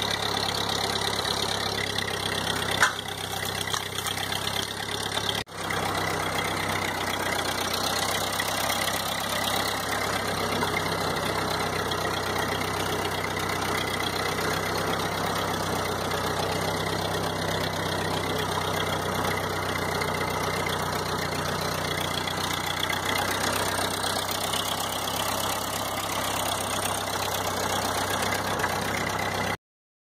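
1952 Ford 8N tractor's four-cylinder flathead gasoline engine running steadily as the tractor drives along. A single sharp knock sounds about three seconds in, and the sound cuts off abruptly just before the end.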